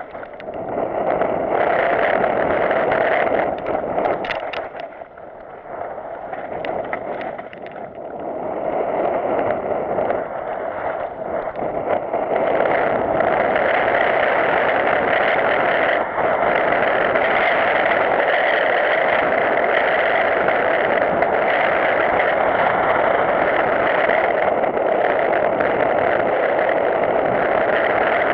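Mountain bike descending a dry singletrack, the wind rushing over the GoPro's microphone mixed with tyre noise over dirt and dead leaves. It eases off briefly with a few knocks about four to eight seconds in, then runs as an even, louder rush.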